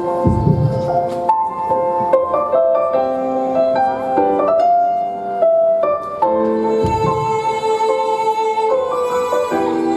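Dance music with a violin melody over piano, with two deep low booms, one at the very start and another about seven seconds in.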